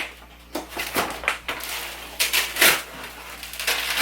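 Crinkling and rustling with scattered knocks and clicks, about half a dozen short bursts, as packaging is pulled off a stroller's plastic frame and parts are handled.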